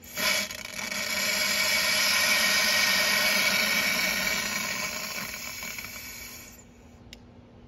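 Air hissing into a car's cooling system through the opened valve of a vacuum coolant refill tool, releasing the vacuum held in the system. The hiss starts suddenly, holds steady, then dies away over a couple of seconds as the pressure equalises; a short click follows about seven seconds in.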